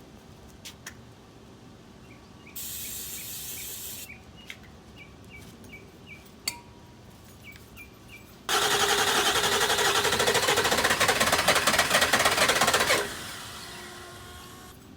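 A short aerosol spray hiss of starting ether about three seconds in. Later, a Ford 7.3 Powerstroke diesel is cranked on its starter for about four and a half seconds with a fast, even chatter, but it does not fire. This is a first start attempt after the fuel lines were replaced, with air still in the fuel system.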